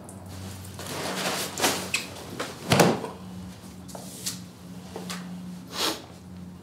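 Objects being handled at a kitchen table: rustling swishes and knocks, with one solid thump a little under halfway through, over a steady low hum.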